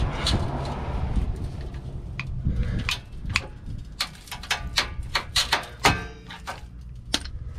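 Bolt cutters biting through a rusted, heavily tensioned steel park brake cable and its sleeve. The cable gives a run of sharp, irregular snaps and clicks from about two seconds in, the loudest near six seconds. The cable is being cut to free a seized electric park brake.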